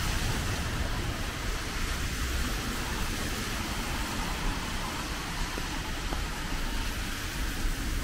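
Steady low vehicle rumble heard from inside a slow-moving vehicle, with the hiss of traffic on a rain-soaked road.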